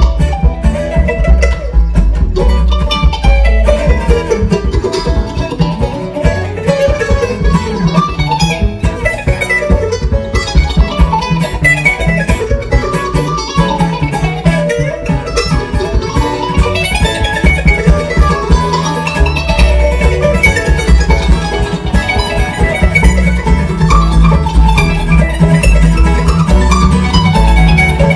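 Live bluegrass band playing an instrumental passage: mandolin, acoustic guitar and banjo picking over an upright bass.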